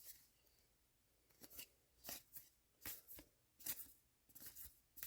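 Trading cards being handled one by one: a series of faint, short slides and flicks of card against card, roughly one every half second to second after a quiet first second.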